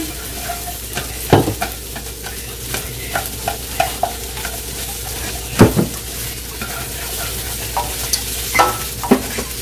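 Onion and chopped vegetables sizzling in oil in a non-stick wok while a spatula stirs them, with scattered scrapes and knocks of the spatula against the pan, the loudest about a second in and midway through.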